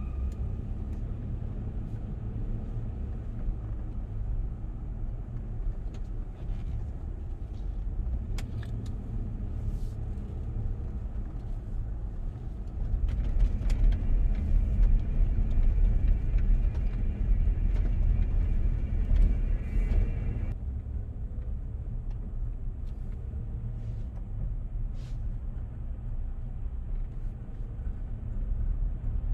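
Land Rover Discovery driving along a mountain road, a steady low rumble of engine and road noise. For about seven seconds in the middle the noise gets louder and rougher, then settles back.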